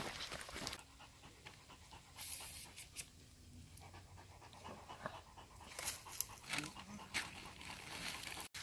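A lurcher panting faintly, worn out from struggling over rough, lumpy ploughed ground.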